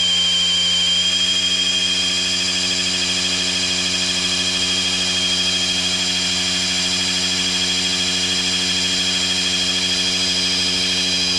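Electric drill spinning an oil-pump priming shaft in an LT1 small-block Chevy V8, running at a steady speed with a high whine while it pumps oil through the pump and up to the lifters.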